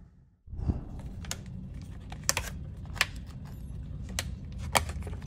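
Clear plastic wrap crinkling and crackling as hands peel it off a plastic cake container, with irregular sharp clicks of the plastic.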